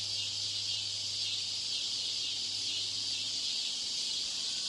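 Steady high-pitched hiss of noise laid over a degraded audio-playback track, with a faint low hum underneath that stops about three and a half seconds in.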